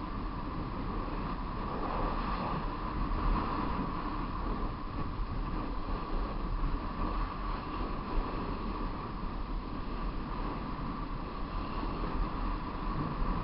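Steady wind rush buffeting the microphone of a rider coming downhill at speed, over a constant low rumble of the moving vehicle and road.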